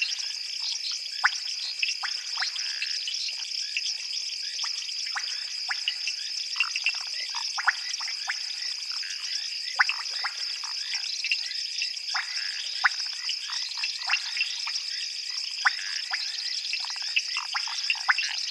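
Night frog chorus: many short, irregular clicking and piping calls over a steady high-pitched trill.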